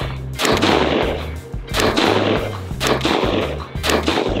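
Several 5.56 rifle shots from a Stag Arms Retro AR-15 with a 20-inch barrel, irregularly spaced, heard under background music with a stepping bass line.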